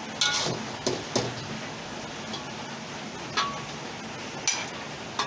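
Metal spatula knocking and clinking against a cooking pan: about half a dozen separate strikes spread unevenly, some with a brief metallic ring, as the cooked water spinach sambal is handled in the pan.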